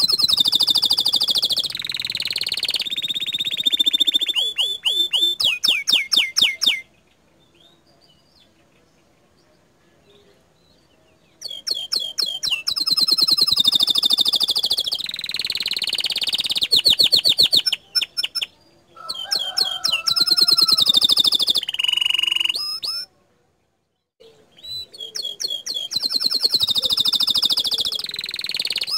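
Domestic canary singing in long bouts of very fast, rattling trills and rolling phrases. These are the rapid 'tembakan' (shot-like) trills prized in canary song. The song breaks off for about four seconds a quarter of the way in, and briefly again near the end.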